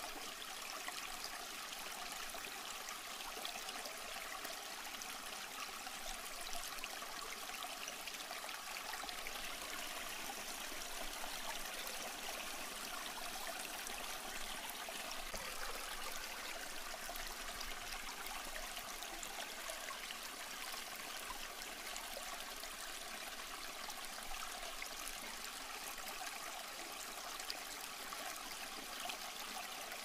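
Running river water, a steady, even rush that is bright rather than deep and never lets up.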